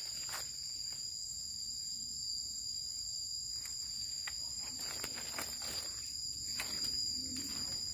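Steady high-pitched insect drone, two unbroken tones, with scattered crunches of footsteps on dry leaf litter.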